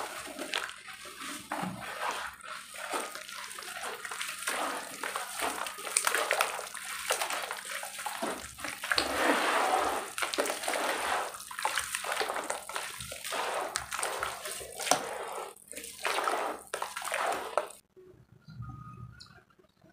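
Hands mixing roasted dirt into water in a basin: handfuls of dirt dropping in, then the thick muddy slurry squelching and sloshing as it is kneaded. A little before the end it cuts suddenly to much quieter, sparse soft sounds.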